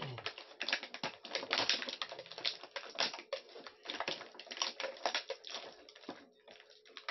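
A quick, irregular run of light clicks and taps from small hard objects being handled, dense at first and thinning out after about six seconds.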